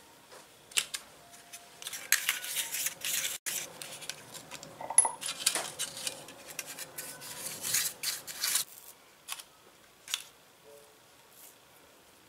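Miniature aluminium foil loaf pans being greased with a pastry brush: bristles scraping inside the thin foil pan and the foil crinkling, in two longer spells, with a few light clicks of the pans being handled.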